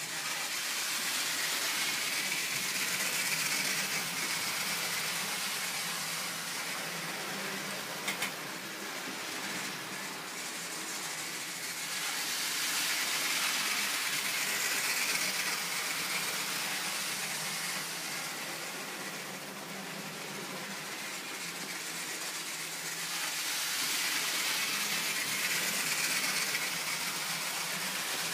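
Model freight train running round the layout: a steady whirring hiss of its small electric motor and wheels on the rails, growing louder and fainter about every eleven seconds as it circles past. A brief click about eight seconds in.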